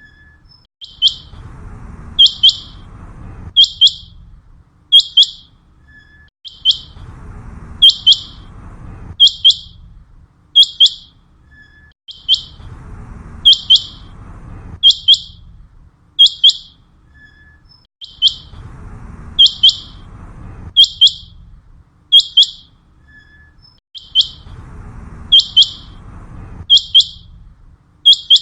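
Common quail calling: short, sharp, high notes repeated over and over, about one every second and a half, some doubled, as a looped hunting call over a low rumbling background.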